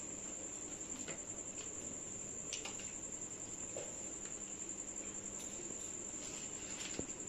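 A cricket trilling steadily and high-pitched throughout, with a few faint clicks and smacks from eating rice by hand off plates.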